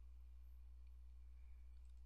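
Near silence: a faint, steady low electrical hum.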